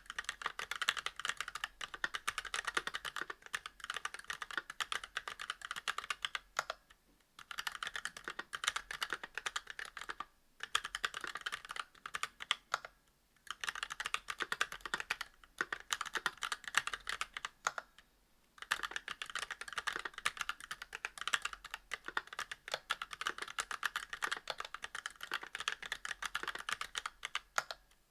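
Mechanical keyboard being typed on quickly: a Monstargear Alu XO v2 with Kailh Box Black linear switches, a brass plate and GMK keycaps, the keystrokes running in a fast, dense stream broken by a few brief pauses.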